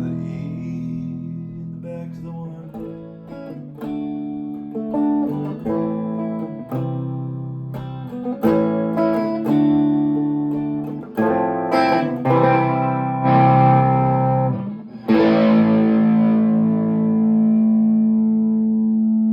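Guitar played without singing: chords picked and strummed one after another while a bridge is worked out around a D chord. A last chord is struck about fifteen seconds in and left ringing.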